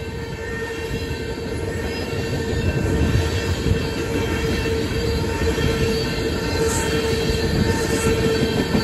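Freight train of tank cars rolling past a grade crossing: steady rumble of steel wheels on the rails, with a steady ringing tone over it, slowly growing louder.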